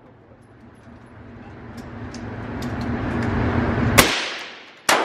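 Two handgun shots about a second apart near the end, each a sharp crack with a ringing tail in the reverberant indoor range, over a low steady hum that grows louder before them.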